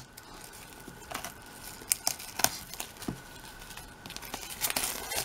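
Clear plastic shrink wrap crinkling and crackling as it is handled and peeled off a hardcover album, in irregular sharp crackles that come more often near the end.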